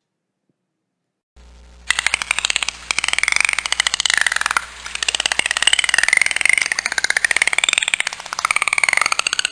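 Dolphin clicking and whistling: a rapid train of clicks with whistles gliding up and down in pitch, starting about two seconds in over a faint low hum.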